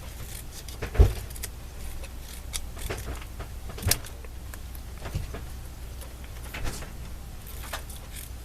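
Paper and sticker pieces being handled on a craft table: light rustles and small taps, with a louder knock about a second in.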